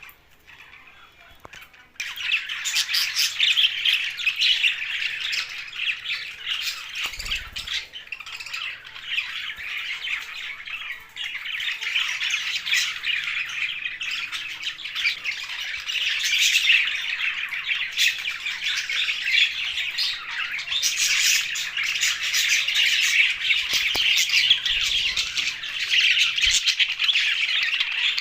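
A flock of English and blue budgerigars chattering and squawking together in a dense, unbroken babble. The chatter starts suddenly about two seconds in, after a quieter opening.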